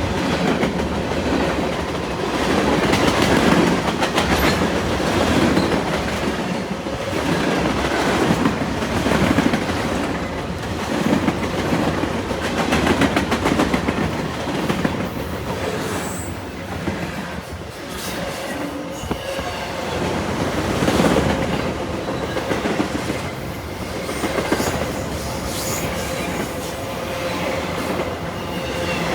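CN freight train cars rolling past at speed, wheels clicking over the rail joints in a steady clickety-clack, with a thin steady squeal from the wheels.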